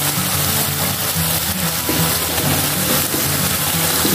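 Background music with a melody of short held notes, over the steady hiss of a blended spice paste sizzling as it fries in a wok and is stirred with a plastic spatula.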